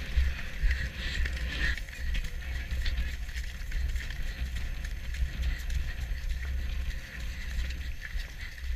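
Wind rushing over the microphone of a camera carried on a cantering horse, with a steady low rumble and the horse's hoofbeats on grass.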